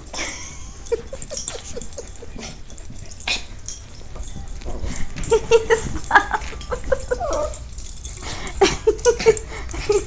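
A dog vocalizing in runs of short, quick, pitched sounds, in clusters about a second in, around the middle and near the end.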